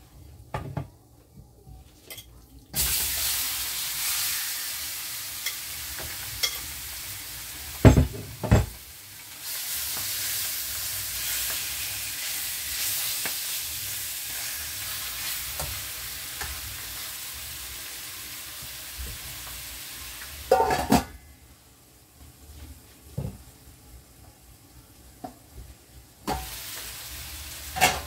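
Seasoned chicken going into hot oil and fried curry powder in a steel pan, setting off a loud frying sizzle about three seconds in. The sizzle runs on as the chicken is stirred, with a few sharp knocks of a utensil against the pan. It drops away for several seconds near the end, then picks up again.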